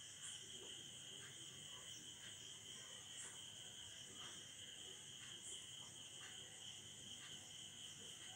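Faint steady high-pitched chirring of crickets, with faint short scratches of a marker writing on a whiteboard.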